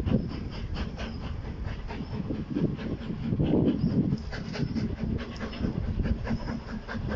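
Steam locomotive approaching with a train of coaches, its exhaust beating in rapid, even chuffs over a low rumble.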